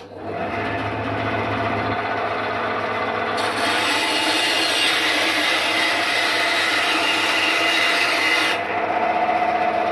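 Aldi Ferrex 10-inch bandsaw switched on and running with a steady hum. From about three seconds in, its stock blade cuts through a length of softwood for about five seconds, adding a loud hiss, then the saw runs free again. The cut goes through easily on the unadjusted stock blade.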